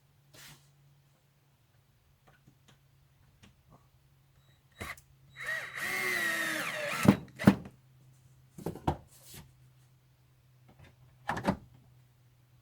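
Power drill driving a screw into plywood, its motor whining and changing pitch for about a second and a half midway. Sharp knocks and clatter follow, the loudest just as the drill stops and a few more later.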